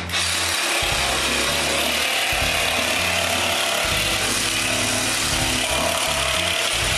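Makita 18-volt LXT cordless reciprocating saw cutting through the ceiling, a steady buzzing rasp that starts at once and holds at an even level without a pause.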